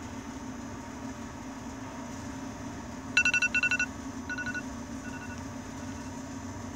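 Smartphone giving a quick run of short electronic beeps about three seconds in, then a few fainter single beeps, as its volume is turned up. A steady low hum underlies it.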